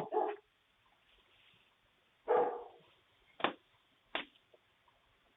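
A dog barks once, about two seconds in, followed by two sharp clicks a little under a second apart.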